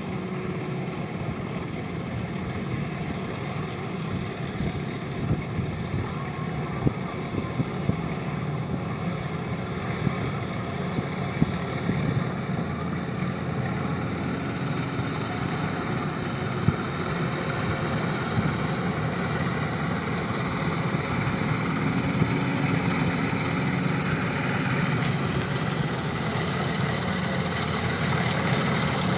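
An engine running steadily, slowly growing a little louder, with wind on the microphone and a few sharp clicks.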